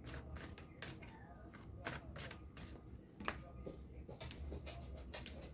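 Tarot cards being shuffled and handled in the hands, a faint run of irregular soft flicks and snaps, with one sharper snap about three seconds in.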